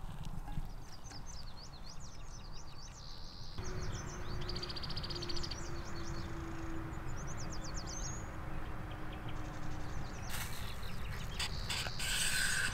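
Small birds chirping repeatedly in quick short calls over a steady low rumble. Near the end come a few sharp clicks and a burst of hiss.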